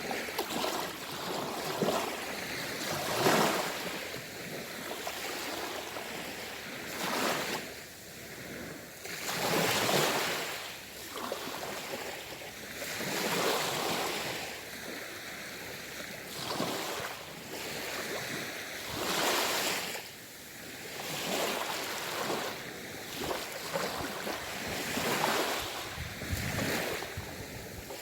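Sea waves washing onto the shore, one surge after another every few seconds, with a steady hiss of surf between them.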